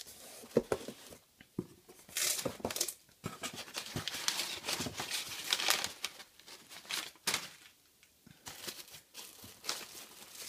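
Crumpled packing paper rustling and crinkling as it is pulled out of a cardboard box, in irregular bursts with short pauses.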